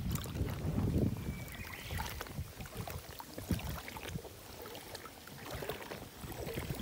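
Water sloshing and lapping close to the microphone as a float tube moves along the bank, with irregular low rumbles.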